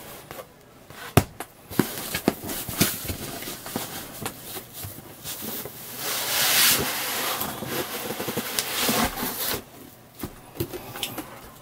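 Cardboard packaging being handled during unpacking: scattered knocks, taps and scrapes of boxes and a cardboard envelope, with a longer spell of rustling and scraping from about six to nine and a half seconds in.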